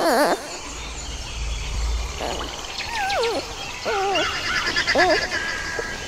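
Giant panda chirping: short, wavy, whistle-like calls that fall in pitch, coming about a second apart. Fainter high bird-like twittering and a brief low rumble sit behind them.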